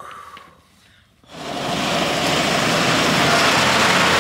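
Steady rushing noise of a vehicle driving on a snowy mountain road, cutting in sharply about a second in after a near-quiet start.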